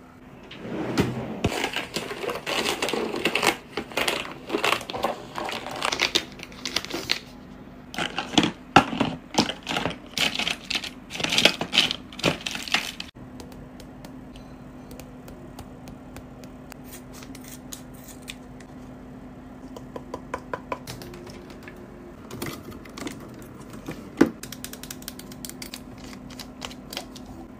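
Close-up clicking and crinkling from fingernails tapping and handling plastic cosmetic packaging, a face-mask sachet and a spray bottle. The clicks come thick and loud for about the first half, then turn sparser and quieter, with a faint steady hum underneath.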